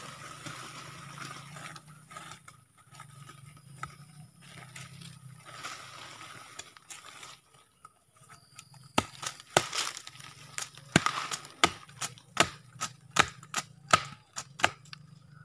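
A digging pole jabbed into the soil and roots around a sapling to pry it out: scraping and rustling at first, then about a dozen sharp strikes, roughly two a second, in the second half.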